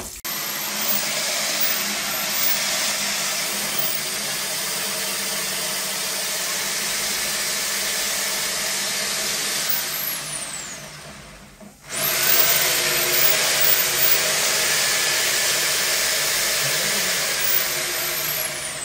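Electric high-pressure drain jetter (pressure-washer pump) running steadily while its hose jets water into a clogged floor drain, a loud, even hiss over a motor hum. It drops away for a moment near the middle and starts again.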